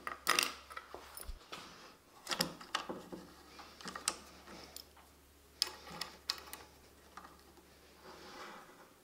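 Irregular light clicks and knocks of a router and a brass hinge being handled, the hinge leaf set down on the router's plastic base plate to gauge the bit depth; the router's motor is not running.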